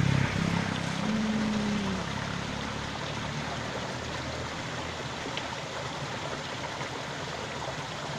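Water of a small, narrow stream flowing steadily, a constant rushing and trickling.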